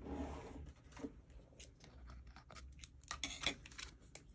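A plastic packet of water-soluble graphite putty being handled and opened: faint rustling and scattered small clicks, busier near the end.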